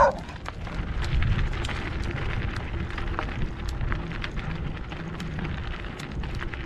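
Bicycle tyres rolling over a gravel road, with loose stones crunching and ticking under the wheels and a steady low wind rumble on the microphone.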